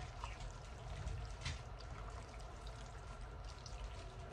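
Silicone spatula stirring thick, sauce-coated spaghetti in a stainless steel bowl: wet, squishy mixing with a few short taps of the spatula against the bowl, the sharpest about a second and a half in, over a low steady hum.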